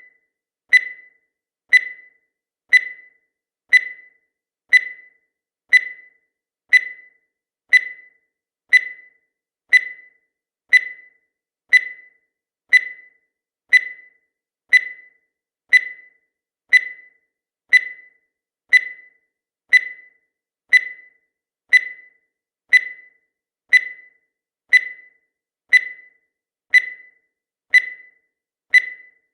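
Countdown timer sound effect: a short, high electronic beep once a second, each one fading quickly, marking off the seconds.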